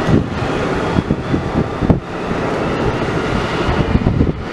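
Amtrak Downeaster passenger train passing close by: a loud, steady rumble of wheels on the rails with irregular clatter and one sharp knock about two seconds in.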